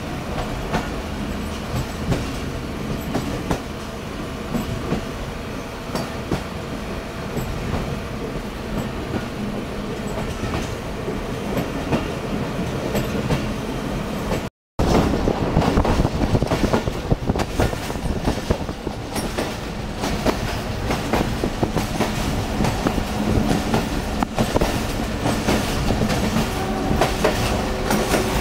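Passenger train running steadily, heard from aboard: a continuous rumble of wheels on track with irregular clicks over the rail joints. The sound cuts out very briefly about halfway, then returns a little louder.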